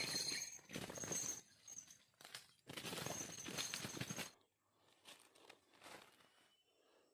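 Rustling and crunching in several noisy bursts that cut off abruptly about four seconds in, followed by faint scattered rustles.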